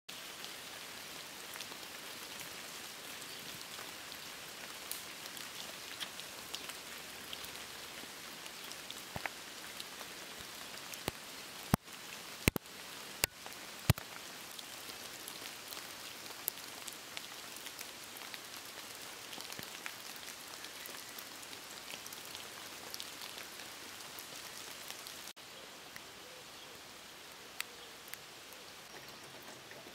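Steady rain falling, with a patter of individual drops and four sharp, loud taps close together about 12 to 14 seconds in. The rain gets slightly softer about 25 seconds in.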